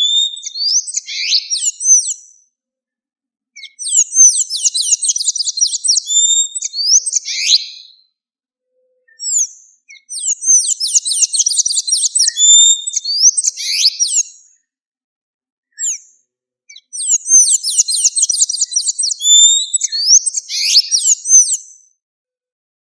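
Blue-gray tanager (sanhaço-da-amazônia) singing: four bouts of rapid, squeaky, high-pitched twittering notes, each a few seconds long, with short silent gaps between them.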